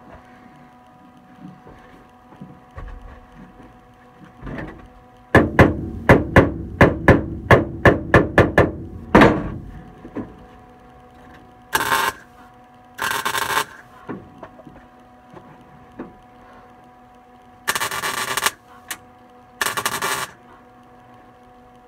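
MIG welder tack-welding a sheet-steel floor patch, making four short crackling bursts in the second half. Before them comes a quick run of about fifteen sharp knocks on the metal over some four seconds, the loudest sound here.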